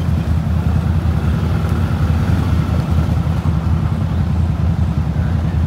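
Mud-caked side-by-side UTV's engine running at low, steady revs: a continuous deep rumble.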